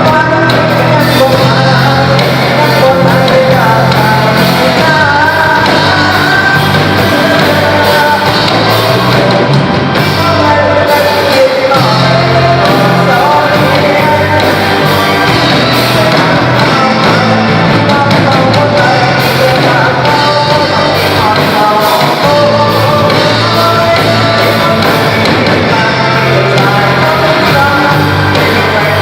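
A band playing loud rock music, with a singer, throughout.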